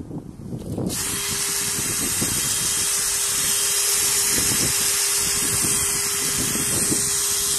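Cordless drill starting about a second in and running steadily, spinning a plastic container in a tub of water as a centrifugal vortex lifter. The water churns and sprays around it with a steady hiss over the motor's even hum.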